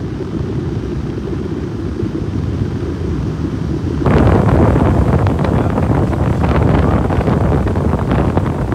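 Wind buffeting the microphone on a moving pontoon boat, a low rumble that turns louder and harsher about four seconds in.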